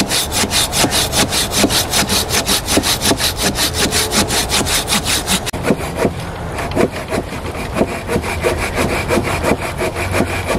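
Folding hand saw cutting through a log in quick, even back-and-forth strokes, several a second, keeping up a steady rhythm.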